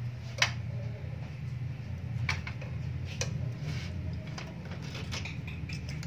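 Scattered clicks and taps of SATA cables and plastic connectors being handled inside a metal desktop PC case, the sharpest click about half a second in, over a steady low hum.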